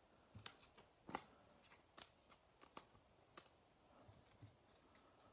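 Near silence with faint, scattered clicks and taps of baseball trading cards being handled and set down on a table mat.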